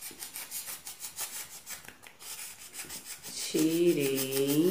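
Utility-knife blade shaving and scraping an expanded-polystyrene (styrofoam) ball in a quick run of short strokes, rounding off its top. The scraping stops about three and a half seconds in.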